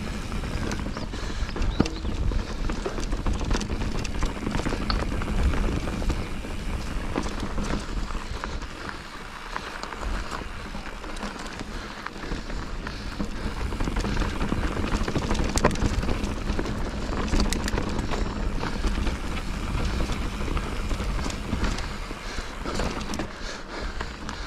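Wind rushing over the microphone with a steady low rumble, mixed with scraping, rattling and scattered clicks from a fast downhill descent.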